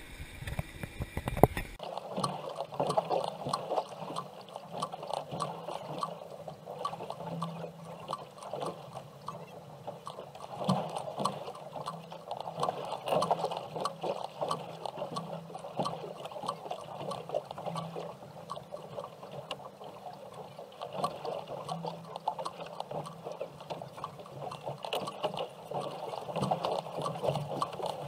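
About two seconds of low rumble, then water sloshing and splashing against the boat with many small crackles and ticks.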